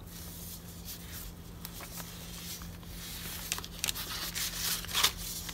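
Paper rustling as the pages and a small flip-up of a junk journal are handled and turned. It is faint at first, with several short, sharper rustles in the last two seconds, over a steady low hum.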